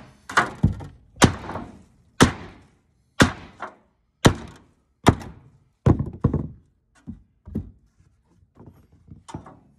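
Hammer blows on a pry bar wedged under an old wooden door footer: about ten sharp strikes, roughly one a second, the last few weaker.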